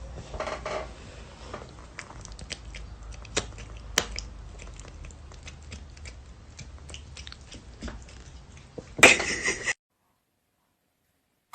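A pet chewing, with many small sharp clicks and crunches over a low hum. About nine seconds in there is a louder noisy burst that cuts off suddenly.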